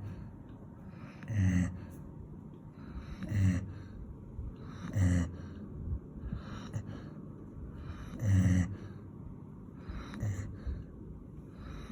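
Golden retriever snoring in its sleep: a low snore with a breathy hiss about every two seconds.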